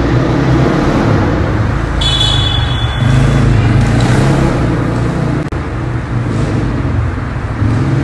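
Dirtbike engine running as the bike rides around on ice, with the level dipping and rising as it moves. A brief high-pitched sound comes in about two seconds in.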